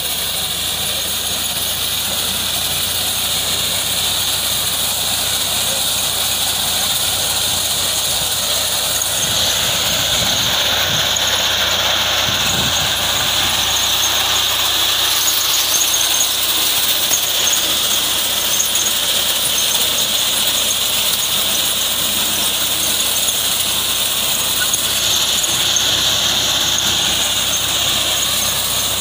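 Fiat 480 diesel tractor running steadily under load with a front-mounted reaper cutting standing maize and sorghum fodder; a steady high-pitched whine from the machinery sits over the engine.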